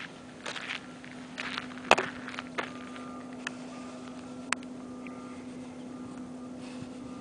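Footsteps on dirt and gravel for the first couple of seconds, with one sharp click about two seconds in. After that a steady low hum with a couple of faint clicks.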